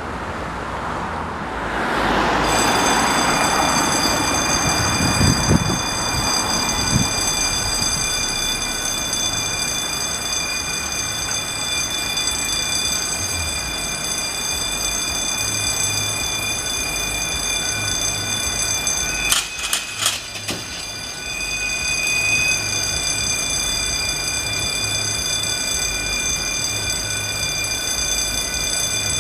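Level crossing audible warning alarm sounding continuously as the red road lights flash and the barriers lower for an approaching train, a steady high electronic tone starting about two seconds in.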